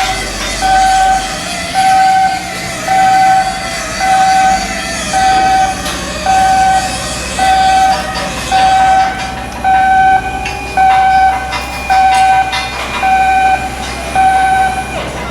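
Electronic warning alarm beeping at an even pace, about one mid-pitched beep a second, over a steady background noise.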